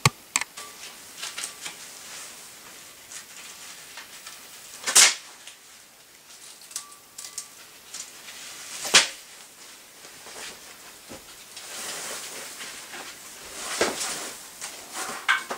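Hand work at an elevator hoist machine: scattered clicks and rustling, with two sharp knocks about five and nine seconds in and a few more knocks near the end.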